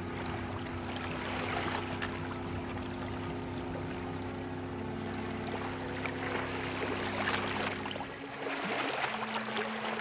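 Cartoon ship sound effect: a steady low engine hum with water sloshing and rushing as the boat sails by. The hum drops away about eight seconds in, leaving the water noise and a single steady tone.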